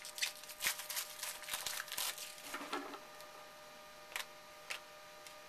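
Trading cards and pack wrapper being handled: a quick run of rustles and light clicks for about two seconds, thinning to a few single clicks later on.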